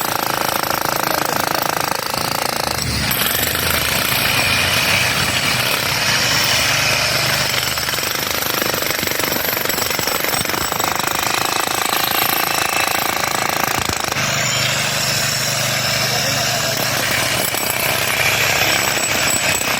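A construction machine hammering rapidly and without a break, a fast, even stream of impacts at a steady loud level.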